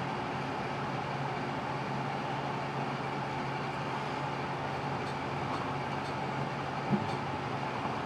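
Steady workshop hum with a low drone underneath. A few faint light clicks of small metal pen parts being handled on a pen press, and one short knock about seven seconds in.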